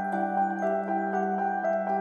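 Background music: a steady held chord under a melody of short notes changing several times a second.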